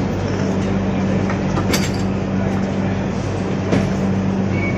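Steady train noise: a low hum and rumble with a couple of light clicks.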